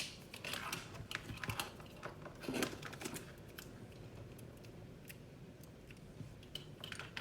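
Irregular light clicks and taps of hands handling multimeter test leads and a small capacitor, busier in the first few seconds and sparser after.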